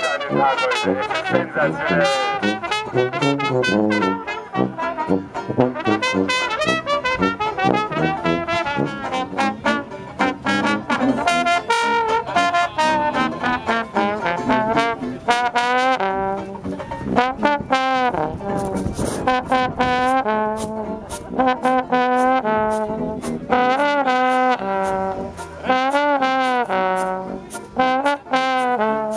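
Small street band playing a tune: a trombone carries the melody over a strummed banjo, with a trumpet joining in.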